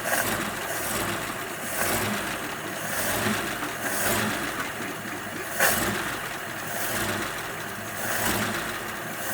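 1941 Ford pickup's flathead V8 running just after restarting, its loudness swelling and falling about every second or so as the throttle is worked while the freshly cleaned fuel sediment bowl refills.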